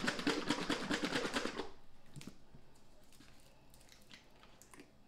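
A capped plastic Sweet Baby Ray's barbecue sauce bottle, holding a little water and leftover sauce, shaken hard, sloshing in a fast even rhythm to rinse the last sauce loose. The shaking stops about a second and a half in, leaving only a few faint handling clicks.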